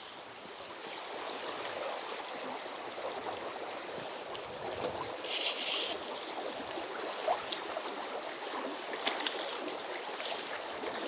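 Shallow river current rushing steadily, with a few small splashes in the second half as a hooked brook trout thrashes at the surface beside a landing net.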